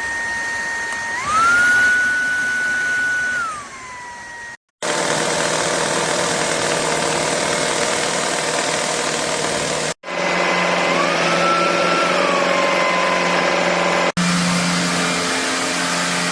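Shark Stratos cordless stick vacuum running: its motor whine jumps to a higher pitch about a second in, then falls back and stops. After a short break it runs again with a loud rushing suction noise, its whine rising and falling once more midway.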